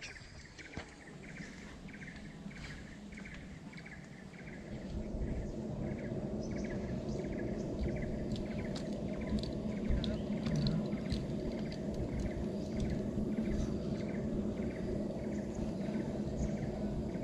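Outdoor ambience: a small creature chirping steadily, about two or three short calls a second, over a low rushing noise that swells about four seconds in.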